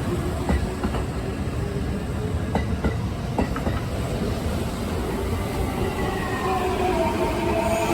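Kintetsu electric train running through the station, a steady rumble with a few clacks over the rail joints. Near the end a whine sets in and falls slightly in pitch.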